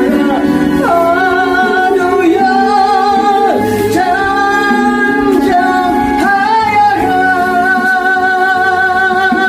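A solo singer performing a gospel song, holding long notes with vibrato over instrumental accompaniment.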